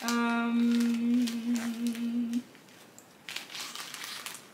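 A woman hums one long, steady note for about two and a half seconds. Near the end, a clear plastic bag rustles faintly as it is handled.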